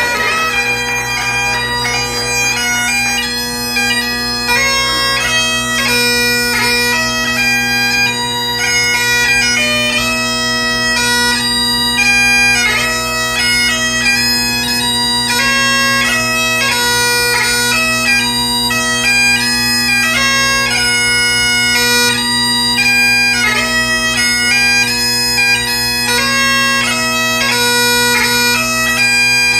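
Great Highland bagpipe played solo: steady drones sound beneath a chanter melody that moves quickly from note to note with grace notes.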